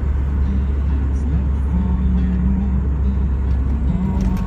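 BMW Z3 roadster driving, its engine holding a steady low drone under even road noise.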